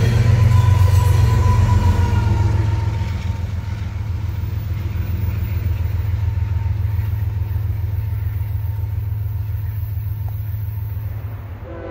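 Low, steady rumble of a double-stack freight train and its trailing diesel locomotive rolling past, loudest in the first three seconds with a faint fading ringing tone, then settling to a lower, even rumble. A locomotive horn starts just at the very end.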